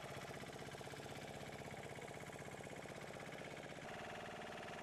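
A boat's engine running steadily, with a fast, even throb and a slight change in tone near the end.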